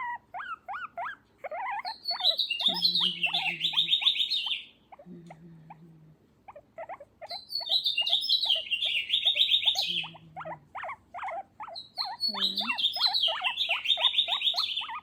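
Small pet making funny noises while getting a back massage: a steady run of short squeaky chirps, broken three times by bursts of fast high trilling, with a few short low hums.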